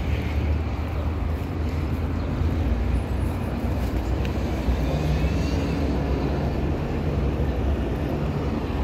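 Steady low rumble of outdoor city ambience, with no distinct events.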